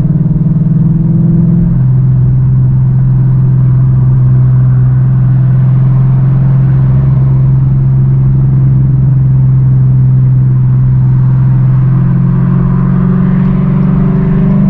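V8 engine and exhaust running steadily under way, a constant low drone. Its pitch drops about two seconds in and rises again near the end, as engine speed changes.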